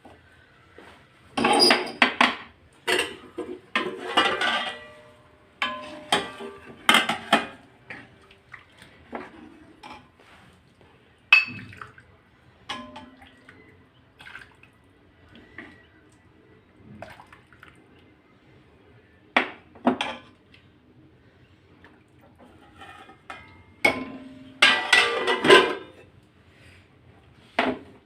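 Spoons and dishes clinking and clattering in scattered bursts as food is dished up, loudest about two seconds in and again near the end.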